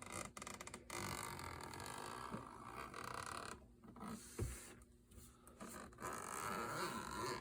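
Rustling and scraping of a packaged case being handled and opened, in stretches with short pauses, with a single knock about four and a half seconds in.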